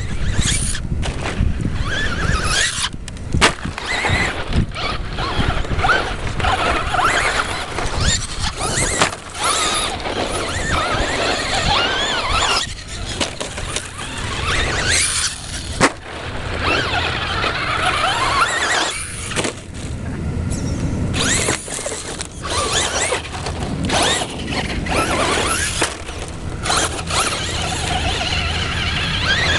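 Electric motors and drivetrains of Traxxas Slash 2WD radio-controlled trucks whining, rising and falling in pitch as they are throttled on and off over dirt jumps, with a few sharp knocks along the way.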